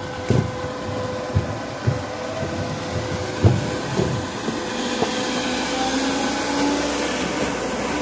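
Concrete pump with a built-in mixer running with a steady mechanical hum. Irregular low thumps come through in the first half, and the running noise grows denser from about halfway.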